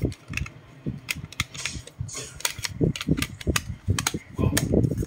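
Hard disk enclosure casing being handled and its cover pressed and snapped shut by hand. It gives many sharp, irregular clicks and knocks.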